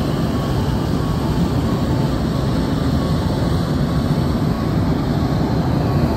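Hot air balloon's propane burner firing in one long, steady blast as the balloon climbs.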